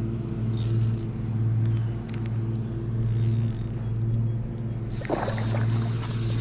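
A steady low motor-like hum drones on, swelling and fading a little. About five seconds in, the hooked grass carp splashes at the surface.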